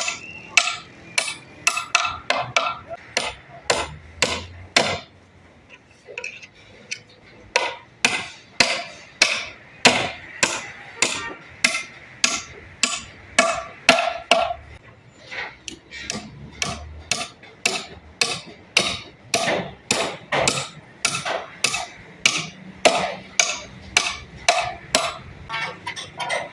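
Hammering on wood: a long series of sharp knocks, about two to three a second, with a short pause about five seconds in. Music plays faintly underneath.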